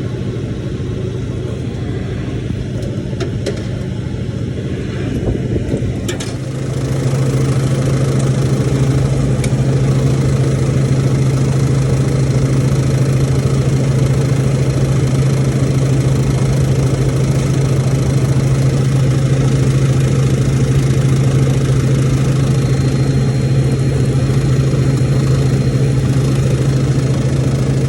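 Kairak refrigerated table-top unit running with a steady low hum, the abnormal noise it is being checked for. The hum grows louder about six seconds in and then holds steady.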